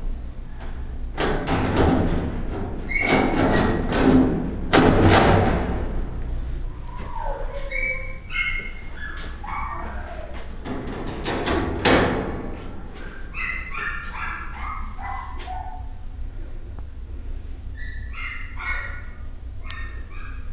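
Metal wire cage door rattling and clanking as it is handled and opened, several sharp clanks in the first six seconds and one more about twelve seconds in. After that, quieter runs of short barks and yips, like dogs, over a steady low hum.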